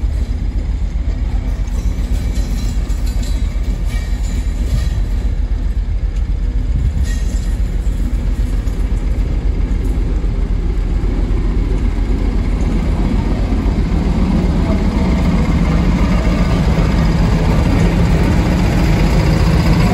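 Diesel engine of a Class 56 locomotive, a Ruston-Paxman V16, working under power as the train pulls away. It is a steady low drone that gets louder and develops a pitched growl over the last few seconds as the locomotive draws level and passes.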